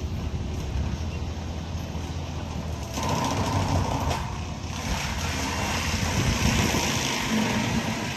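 Forestry mulcher running some way off: a steady low diesel engine rumble, which grows louder and harsher about three seconds in as more grinding noise joins it.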